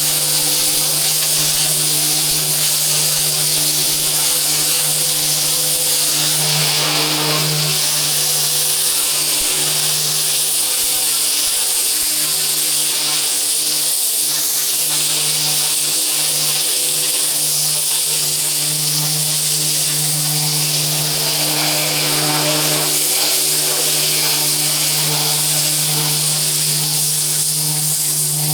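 Pressure washer running steadily: a constant motor hum under the hiss of the high-pressure water jet spraying.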